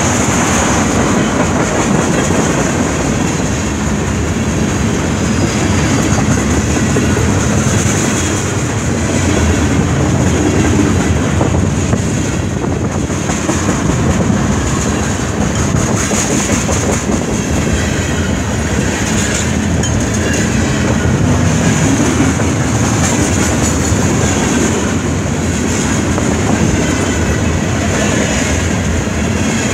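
Freight train cars, boxcars and tank cars, rolling past: a steady loud rumble of steel wheels on rail with a clickety-clack over the rail joints.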